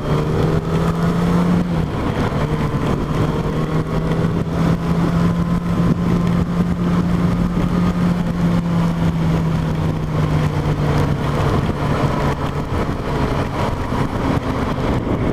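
Yamaha FZ8's inline-four engine running at a steady cruise under heavy wind rush over the microphone. The engine note dips briefly about two seconds in and eases off near the end.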